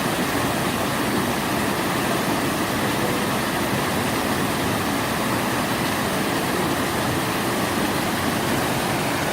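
Giessbach Waterfall's water crashing down, a steady, unbroken rushing roar.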